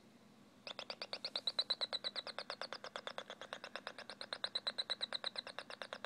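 Pulsed door-alarm oscillator heard through a nearby radio: a fast, even train of short chirps, about a dozen a second, starting about a second in. Each chirp is one reed-switch closure as a magnet on the spinning four-magnet rotor passes, switching the oscillator on.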